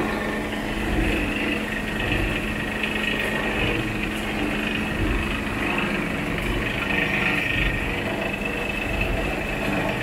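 Electric-motor-driven plastic recycling machine running steadily, shredding plastic bags: a constant hum over dense mechanical noise.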